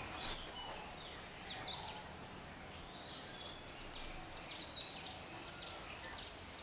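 Birds chirping over a faint steady background hiss: two clusters of short, high, quickly falling chirps, about a second in and again past four seconds.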